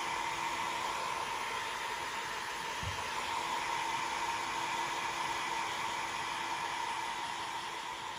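Handheld hair dryer running steadily on a wet kitten, an even rush of air over a low motor hum.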